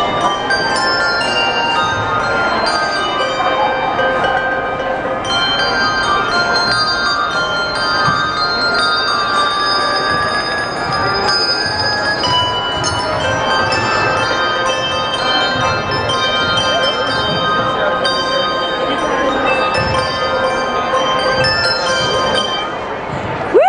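A handbell choir playing a Christmas song: many handbells struck one after another, their clear tones ringing on and overlapping.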